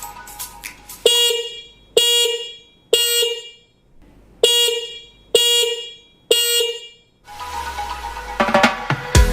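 Hella single-disc 12 V motorcycle horn giving six short honks in two sets of three, each a single high tone of about 480 Hz. Background music with a beat comes back near the end.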